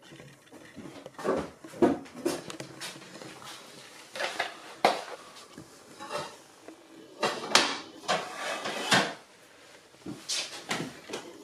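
About a dozen irregular knocks and clatters of kitchen containers being handled and set down: a plastic milk bottle and measuring jug, then a plastic mixing bowl with a whisk in it.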